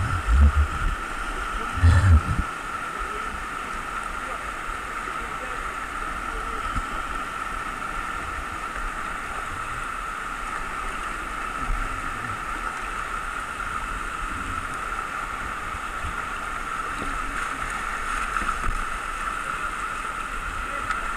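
Whitewater rapids of a mountain river rushing steadily around a kayak, with two low thumps about half a second and two seconds in.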